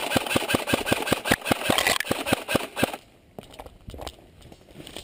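Airsoft electric gun (AEG) firing a rapid, even string of shots, about seven a second, that stops abruptly about three seconds in, leaving only a few faint clicks.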